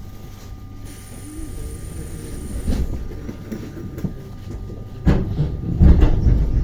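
ER9T electric multiple unit running, heard from inside the carriage: a steady low rumble with a thin high whine for a couple of seconds about a second in, then loud heavy knocks and rattling near the end.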